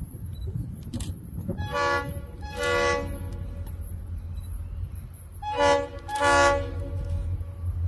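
Approaching diesel locomotive's multi-chime air horn sounding four blasts in two pairs, each a short blast then a longer one: the first pair about two seconds in, the second pair about five and a half seconds in.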